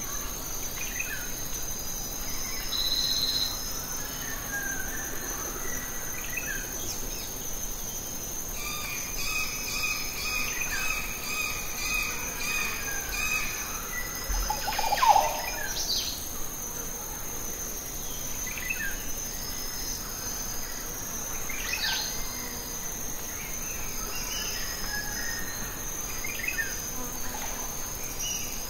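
Steady high-pitched chirring of insects, with scattered short bird chirps, and one brief louder sound about halfway through.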